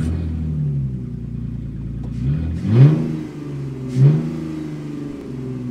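Car engine running, revving up sharply twice, about three seconds in and again about four seconds in, its pitch falling back after each.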